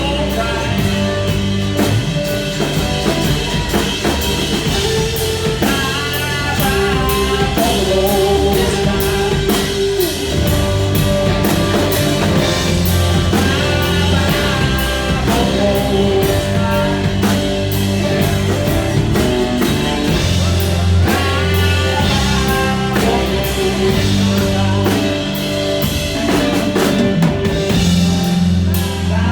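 Rock band music: a drum kit keeps a steady beat with cymbals ticking over bass and guitar. A lead melody line bends and glides over it, and no sung words come through.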